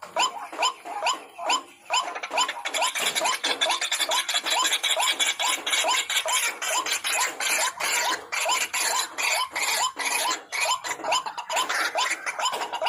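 White-breasted waterhen (ruak-ruak) calling: a fast run of short, harsh, upward-hooked notes, about three a second, which crowd together and overlap around the middle.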